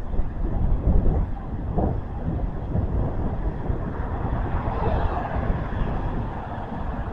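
Wind buffeting the microphone as a low, gusting rumble, mixed with passing road traffic; a vehicle sound swells about five seconds in.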